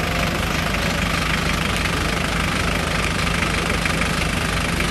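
Vehicle engine idling steadily, a continuous low drone with a fast, even pulse.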